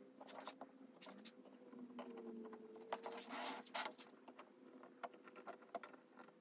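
Faint scratching and clicking of a blade cutting through a cork gasket sheet, with a longer stretch of rasping cuts about two to four seconds in, over a faint steady hum.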